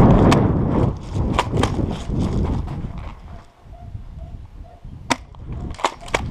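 Airsoft guns firing during a close-quarters game: a few sharp cracks, one shortly after the start, two close together about a second and a half in, and a quick cluster of three near the end, with wind rumbling on the microphone at first.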